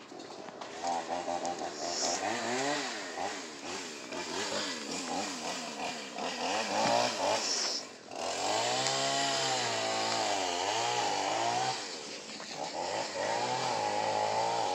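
A small engine revving up and down over and over, its pitch rising and falling in smooth swells, with a dip about eight seconds in before it revs back up.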